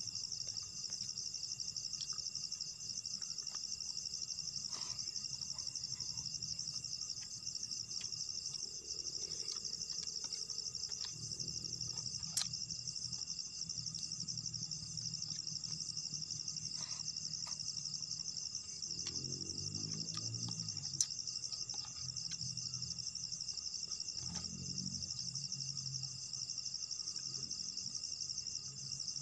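A steady, dense chorus of insects chirring in a high, fast pulsing drone, with scattered small clicks and a couple of sharper ticks, one about twelve seconds in and another about twenty-one seconds in.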